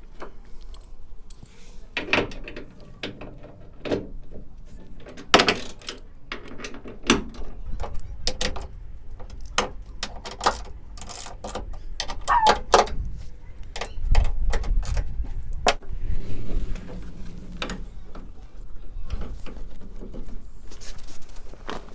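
Irregular clicks, knocks and rattles of a van's sliding side door being worked onto its hold-open bracket, with a short squeak partway through.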